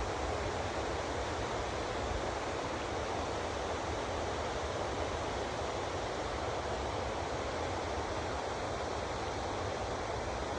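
Steady rush of running water, with an uneven low rumble of wind on the microphone.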